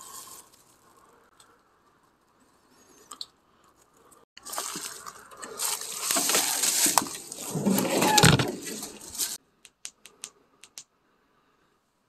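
Rustling and crunching of dry leaves and bamboo undergrowth as someone walks through it, starting about four seconds in and cutting off abruptly about nine seconds in, followed by a few faint clicks.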